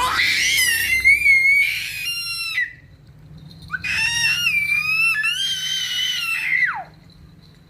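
A baby's high-pitched screams: two long shrill squeals about a second apart, the second ending in a sharp downward slide in pitch.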